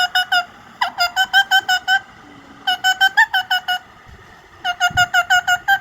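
Female Indian ringneck parrot calling in quick bouts of short, sharp repeated notes, about six or seven a second, with brief pauses between bouts.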